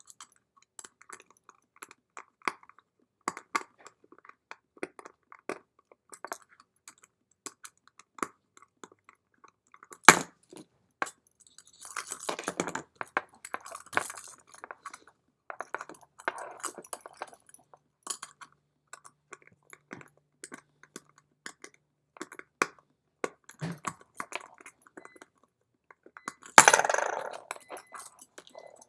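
Small metallic clicks and scrapes of a screwdriver working the tiny screws of a Noke Bluetooth padlock's casing, with a sharp knock about ten seconds in and scratchy rattling handling around twelve to fourteen seconds and again near the end.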